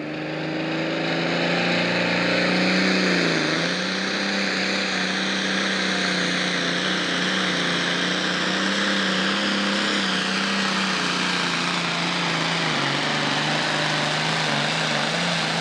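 John Deere pro stock pulling tractor's turbocharged diesel engine running hard at high revs under full load while dragging the pulling sled. The engine note holds steady, sagging briefly about three seconds in and again toward the end.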